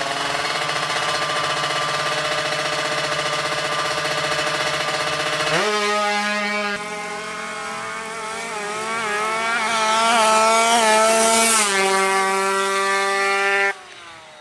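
Tuned two-stroke Kawasaki Ninja drag bike engine, bored to 155cc, running at a steady fast idle, then jumping up in pitch about five and a half seconds in and being revved in quick rises and falls before it cuts off suddenly near the end.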